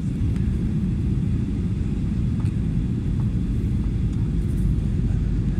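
Airliner cabin noise in flight: a steady low rumble of engines and airflow heard from inside the passenger cabin.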